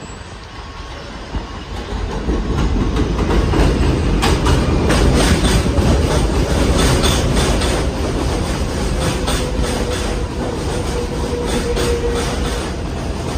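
New York City subway (Z) train pulling into a station: a rumble of steel wheels on the rails that grows loud about two seconds in, with rapid clicks as the wheels cross rail joints, then a thin steady squeal as the train slows alongside the platform.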